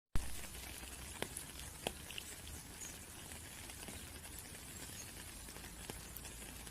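Steady rain with close, separate drops pattering, a few louder single drips standing out. It cuts in abruptly after a moment of dead silence at the very start.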